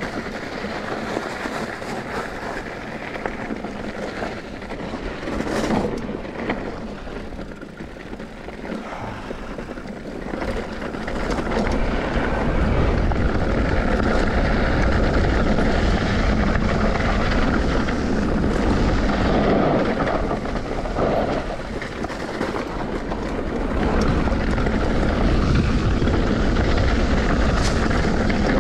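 A vehicle in motion with wind rumbling on the microphone; the rumble grows louder about twelve seconds in and stays up.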